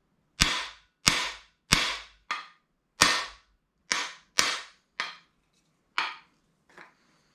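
Hammer blows on a cam bearing installer tool, driving a new camshaft bearing into its bore in a small-block Chevy 350 block: about ten sharp metallic strikes, each ringing briefly, the last one light, near the end.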